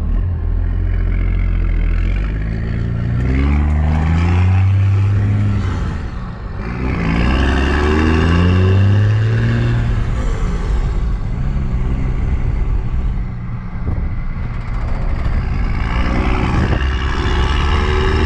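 Cummins diesel engine of a tow truck accelerating hard, its pitch climbing three times and falling back between pulls as it shifts up through the gears. The engine is running on water-contaminated fuel that is being burned through under load.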